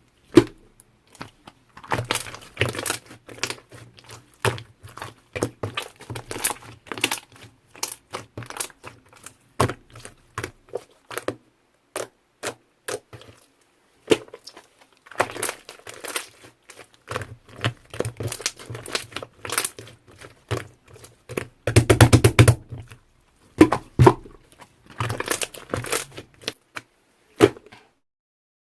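Slime being squished and stretched, making dense, irregular clicks and crackling pops in bursts with short pauses between them.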